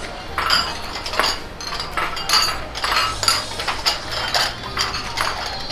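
Metal utensils clinking and clattering against steel bowls and pots in a busy noodle-stall kitchen, in quick irregular strikes, two or three a second, each with a short metallic ring.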